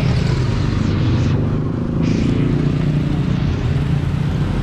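Street traffic: motorcycles and other motor vehicles passing on the road, a steady low rumble of engines and tyres.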